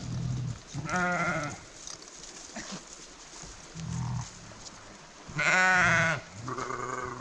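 Sheep bleating: about five separate calls, some deep and low, with the loudest, a long wavering bleat, about five and a half seconds in.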